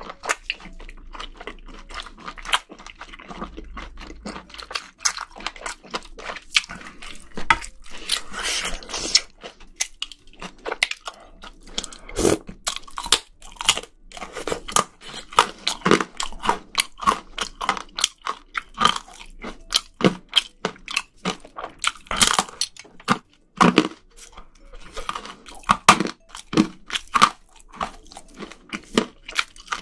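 Close-miked chewing of mouthfuls of spicy seafood, with a steady run of short, sharp crunches, several each second.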